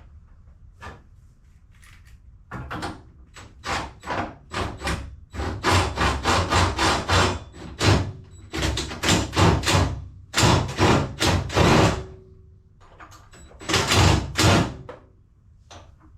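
Hand tools at work on a car's suspension bolts: a run of short, sharp metallic strokes, several a second, coming in bunches for about twelve seconds with a brief pause near the end.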